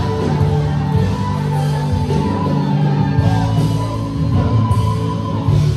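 Pentecostal gospel band music, held low bass notes and sustained tones under a full band.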